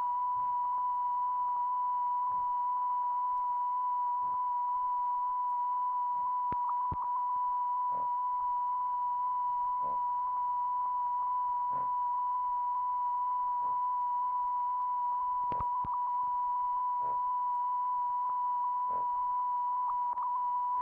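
A steady electronic test tone, one unbroken pitch at a constant level, with faint soft clicks about every two seconds.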